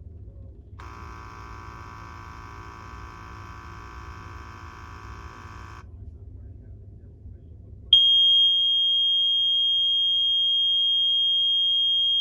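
RKI GX-3R gas detector in its SDM-3R bump-test dock, with a low hum under a buzz of many steady tones lasting about five seconds. About eight seconds in, the detector's alarm starts: one loud, steady, high-pitched beep held for over four seconds, the alarm check at the end of the bump test.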